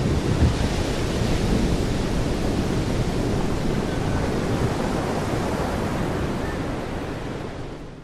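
Wind blowing across the microphone over the steady wash of small waves on a sandy beach. The sound fades out near the end.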